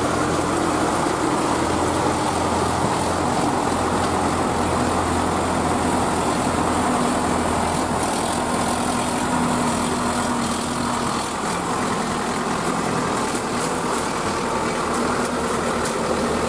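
Several diesel tractor engines running steadily under load as the tractors, linked by a tow chain, pull through deep mud. The deep low hum thins out a little past the middle.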